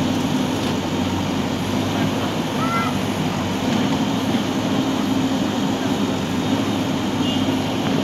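JCB 3DX backhoe loader's diesel engine running steadily while its backhoe arm digs.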